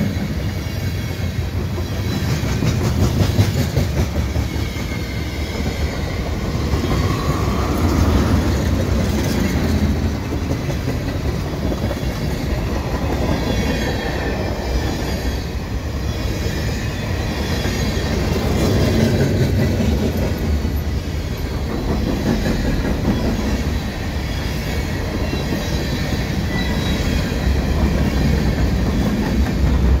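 A freight train's cars rolling past close by, the steel wheels rumbling on the rails. Faint high wheel squeal comes and goes.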